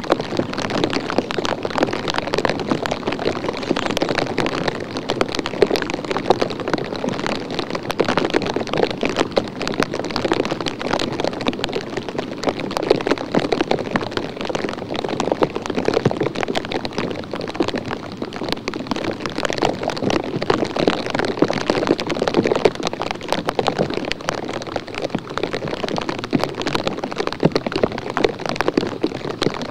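Steady, dense crackling patter of fine drizzle drops on the trail camera's microphone housing.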